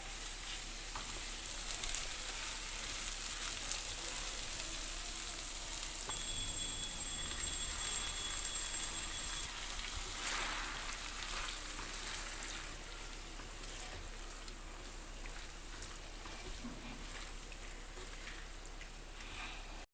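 Food sizzling and crackling as it fries in hot oil in a pan. A faint high steady tone sounds for a few seconds in the middle.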